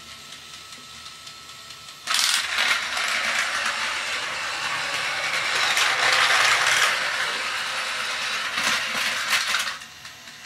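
A loud rattling clatter that starts abruptly about two seconds in and cuts off abruptly near the end, about eight seconds long.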